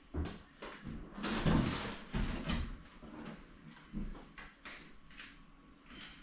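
A run of knocks and scraping sounds, the loudest a long scrape with thumps between about one and three seconds in, then a few lighter knocks.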